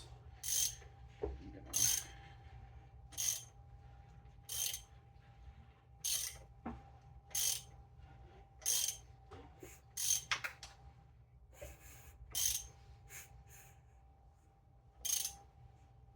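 Ratchet wrench clicking in about ten short strokes, roughly one every second and a half, as the 7M-GTE engine is turned over by hand to bring a cylinder to top dead center. A faint steady hum runs underneath.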